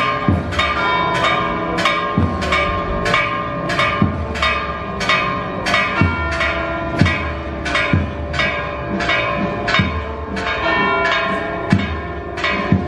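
Church bells pealing from a bell tower. A higher bell is struck about twice a second, with a deeper bell struck about every two seconds.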